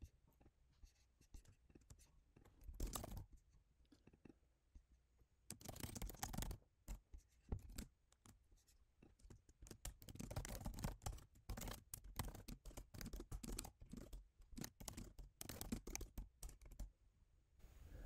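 Faint computer-keyboard typing: quick runs of keystroke clicks, a short burst about three seconds in, another around six seconds, and a longer stretch of steady typing from about ten seconds until just before the end.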